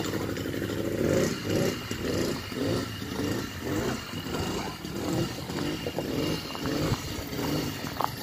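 80cc two-stroke bicycle engine kit running, its sound swelling and falling about twice a second.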